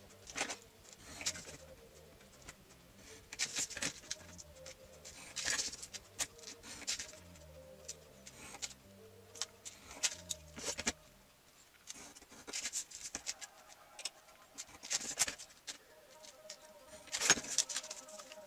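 Cardstock and a steel ruler being handled on a cutting mat: scattered light scrapes, taps and paper rustles. There is a louder crackle of card near the end as the piece is picked up and folded.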